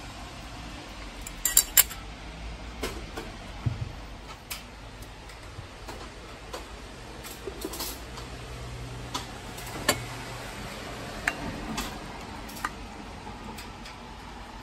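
Metal chopsticks and utensils clinking against a metal plate and a cast-iron pot while food is served. There is a quick cluster of sharp clinks about a second and a half in, then single knocks and clinks every second or two as the pot's lid is lifted and sauce is ladled.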